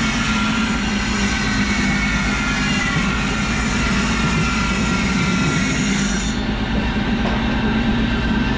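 A machine running steadily, with a low hum and a higher whine that slowly drops in pitch. The highest hiss stops abruptly about six seconds in while the hum continues.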